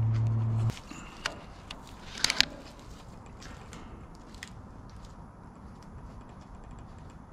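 A steady low hum that stops abruptly under a second in, then a few sharp clicks and knocks of handling, the loudest a quick cluster a little past two seconds in, over faint background.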